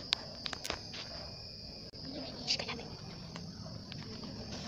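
Insects trilling steadily, a continuous high-pitched drone, with a few small clicks or knocks scattered through it, mostly in the first second.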